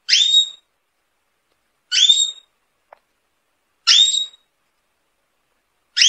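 Domestic canary call: a short whistle that sweeps up and levels off, repeated four times about every two seconds, each call identical to the last.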